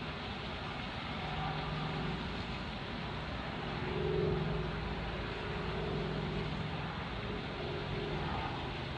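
A motor running steadily, with a low hum that comes and goes and swells a little about four seconds in.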